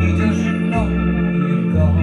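Organ music: held chords over a bass line that moves to a new note about once a second, with a wavering melody above.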